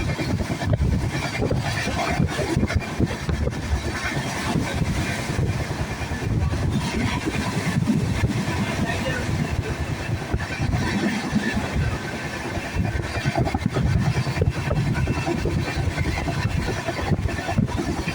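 Train running: a steady, dense rumble, heaviest in the low end, with voices in the background.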